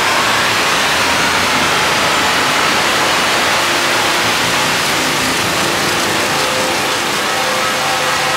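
Make Noise echo modules chained in a feedback loop on a Eurorack modular synthesizer, giving a dense, steady wash of noisy sound with faint held tones coming and going.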